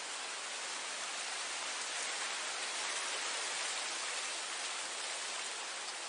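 Wind blowing through grass: a steady, even hiss without low rumble, swelling slightly in the middle.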